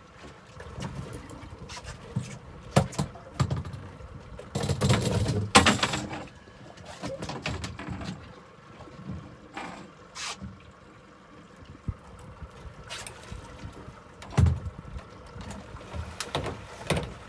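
Irregular knocks, rattles and thumps from a small center-console boat's hull and fittings as it rides the sea, with a louder rush of noise about five seconds in.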